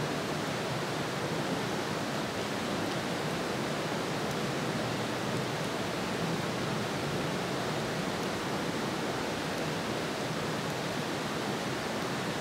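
A river rushing steadily: an even, unchanging noise.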